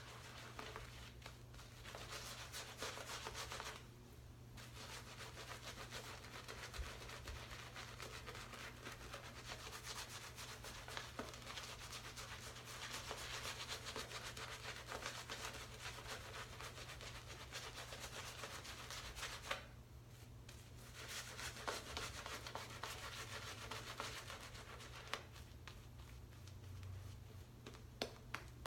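Shaving brush bristles swirled against shaving soap, loading the brush and working up lather: a continuous scratchy rubbing that stops briefly twice, about four seconds in and about twenty seconds in.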